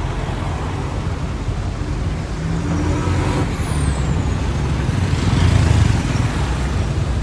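Street traffic: motor vehicles passing close by with a steady low engine rumble. One engine briefly stands out about three seconds in, and the rumble swells toward the end.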